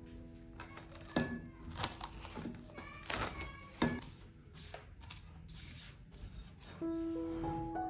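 Plastic cling film crinkling and crackling in a run of quick bursts as it is pulled over a glass mixing bowl. Gentle background music fades out at the start and returns near the end.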